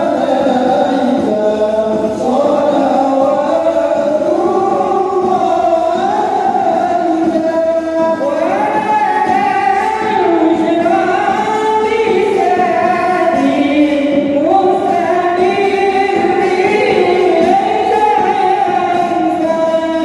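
A group of men singing sholawat, Islamic devotional songs of praise to the Prophet, together in long held notes that wind up and down the melody.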